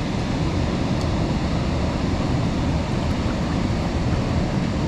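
Steady rush of turbulent water pouring out below a dam spillway, an even, unbroken wash of noise.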